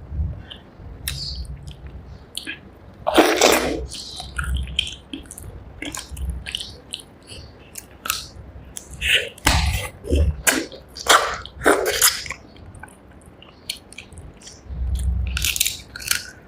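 Close-miked chewing and biting of rice and spicy fish curry: irregular wet mouth smacks and clicks, with a few longer, louder bursts of chewing.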